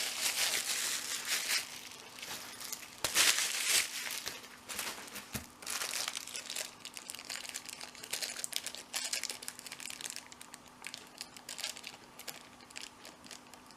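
Packaging crinkling and crumpling as it is unwrapped, in bursts, the loudest about three seconds in, followed by lighter intermittent rustles.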